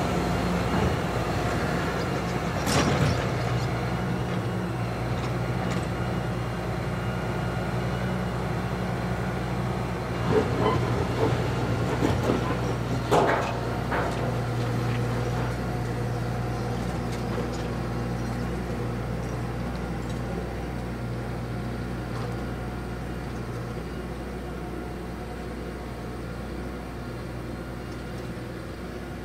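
Massey Ferguson tractor's diesel engine running steadily as it pulls a scraper past, with a few sharp clanks about 3 seconds in and again around 10 to 13 seconds in. The engine sound fades slowly in the second half as the tractor moves away.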